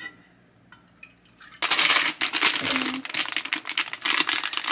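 Milk being poured from a carton into a saucepan, a loud continuous splashing that starts suddenly about a second and a half in, after a few faint clicks.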